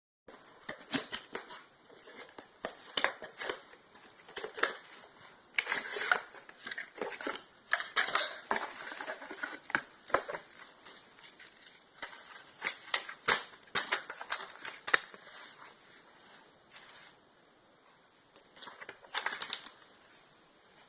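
Hands handling a product and its packaging: irregular clicks, taps and crinkling rustles, with no chime tones. The sounds thin out after about sixteen seconds, then there is a last burst of rustling near the end.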